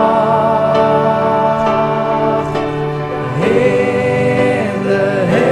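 Slow worship song: voices sing long held notes with choir-like backing over instrumental accompaniment.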